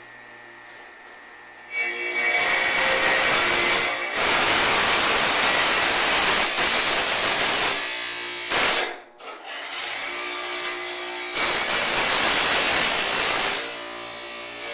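Tile saw cutting fire brick: a loud, steady cutting noise starts about two seconds in, breaks off briefly about nine seconds in, then resumes and eases off near the end.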